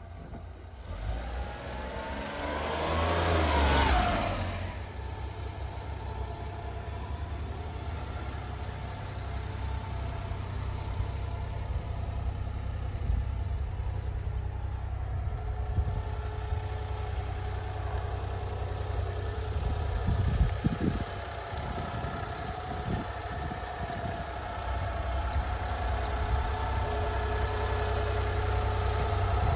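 Small three-cylinder engine of a 1992 Honda Acty kei truck rising in pitch as it revs up over the first few seconds, then settling to a steady idle.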